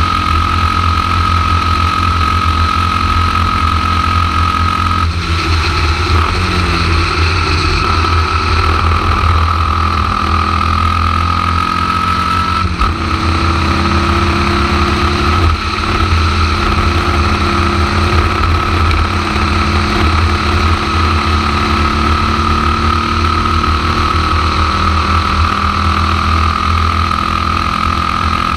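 Onboard sound of a Formula Vee racing car's air-cooled Volkswagen flat-four engine running hard, with heavy wind rumble on the microphone. The engine note falls about five seconds in, changes suddenly about thirteen seconds in, then climbs steadily.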